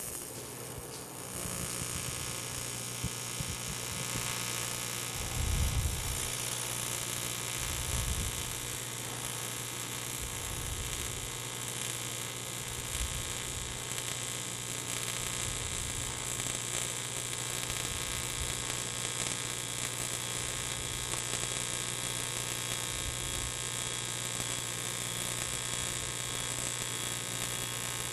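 AC TIG welding arc on aluminium: a steady electric buzz with hiss, struck at the very start and then held at a constant current of about 120–130 amps at the slow opening travel of the weld.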